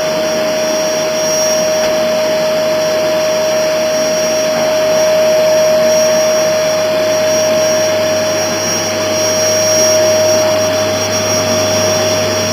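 Vacuum cleaner (hoover) running steadily, a loud rushing hiss with a constant motor whine.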